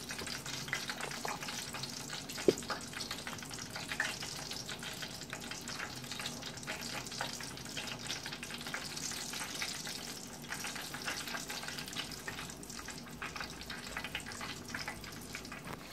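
Flour-coated chicken pieces frying in oil, a steady crackling sizzle, with one brief knock about two and a half seconds in.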